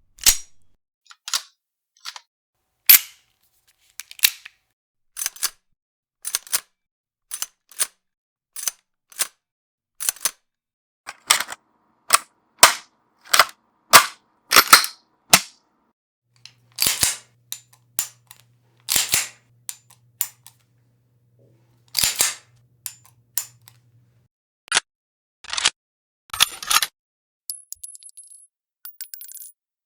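A string of gun reloading sound effects: sharp metallic clicks and clacks of magazines, bolts and slides being worked, some single and some in quick clusters, with a few longer rattling actions partway through.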